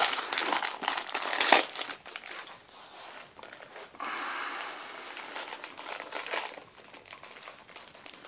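Christmas wrapping paper crinkling and rustling as a West Highland white terrier chews and tugs at it. The crackling is busiest and loudest in the first two seconds, then drops to quieter, scattered rustles.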